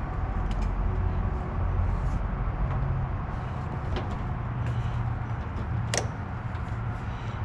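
A few light clicks and taps as hands and multimeter leads work on a truck's battery terminals, the loudest about six seconds in, over a steady low hum.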